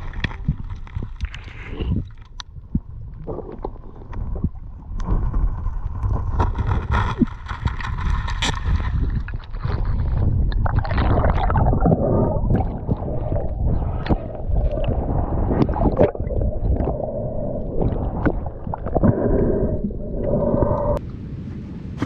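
Water gurgling and sloshing around a diver's camera underwater and at the surface, with a heavy deep rumble and many scattered knocks.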